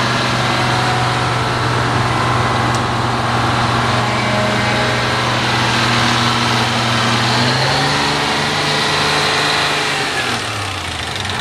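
Diesel engine of a Detroit Diesel-powered cab-over truck heard from inside the cab, running steadily. Its note shifts about two-thirds of the way in and the sound eases off a little near the end.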